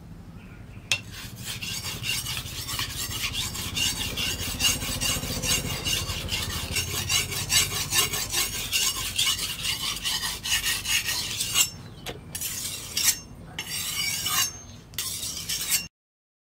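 Hand-forged steel cleaver blade being sharpened by hand on a wet whetstone: rapid back-and-forth strokes of steel grating on stone. They start about a second in and break off in a few short pauses near the end before stopping.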